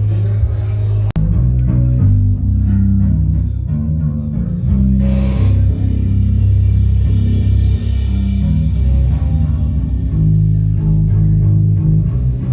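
Music led by a bass guitar line with guitar, cutting out sharply for an instant about a second in.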